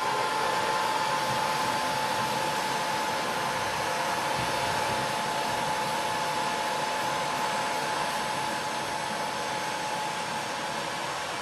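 Hot-air heat gun blowing steadily: a rushing hiss with a steady whine from its fan motor.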